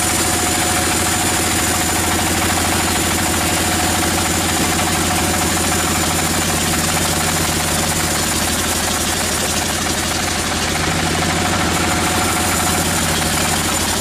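Band sawmill running and sawing through a large log: a loud, steady machine drone with a thin high whine that holds throughout.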